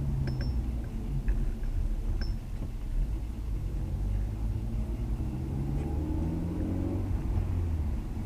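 Honda S2000's 2.2-litre four-cylinder engine heard from inside the cabin, pulling through a gear with its pitch rising from about three seconds in until about seven, then easing off. A few light ticks in the first two seconds.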